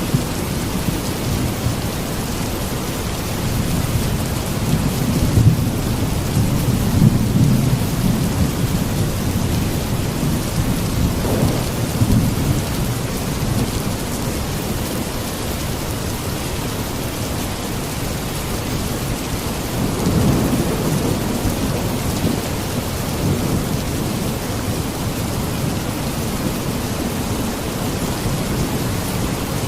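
Steady heavy rain hissing, with low rolls of thunder rumbling through it several times.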